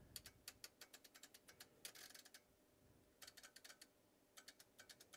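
Rapid small clicks from a rotary control knob on a Tektronix 576 curve tracer's front panel being turned, in three quick runs, with a brief rustle about two seconds in.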